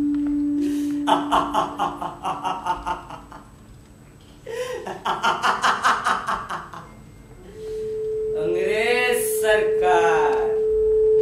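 A young male actor's loud, theatrical laughter in three bouts of rapid pulsed 'ha-ha-ha', over a steady held background tone. The tone drops out about three seconds in and returns at a higher pitch near the end.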